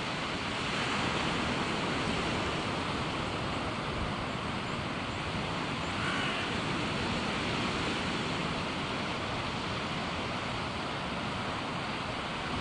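Steady rushing surf washing into the cove, an even noise with wind on the microphone.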